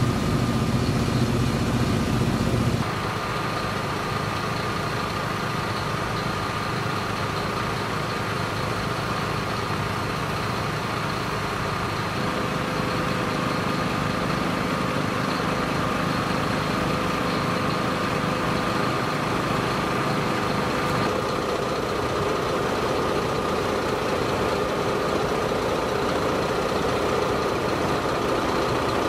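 Fire engines' diesel engines idling steadily, a continuous hum with a thin steady whine over it. The level drops abruptly about three seconds in.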